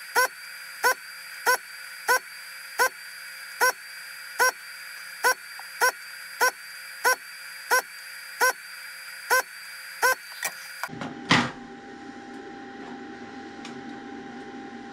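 Vacuum pump of a ZD-915 desoldering station running steadily for about eleven seconds while the gun sucks solder from board joints, with a sharp click repeating roughly every two-thirds of a second; both stop abruptly. A single knock follows soon after.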